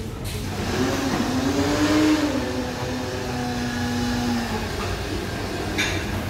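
A motor vehicle engine revving, its pitch rising for about two seconds and then slowly falling away. A short click comes near the end.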